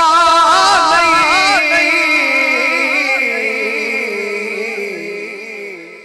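A naat reciter's voice sustaining a long sung note with wavering ornaments, then holding and slowly fading away.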